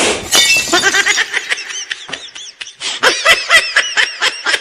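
Laughter in quick repeated bursts, high-pitched and starting suddenly, quickening to several bursts a second toward the end.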